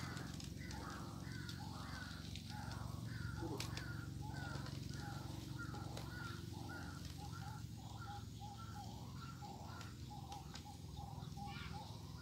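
A bird calling in a steady, fast series of short two-pitched notes, about two a second, over a low steady hum.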